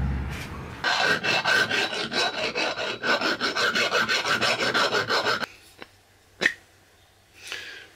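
Metal sprocket's tight bore being worked to fit a steel rod: rapid, even metal-on-metal rasping strokes that stop about five and a half seconds in, followed by a few light knocks.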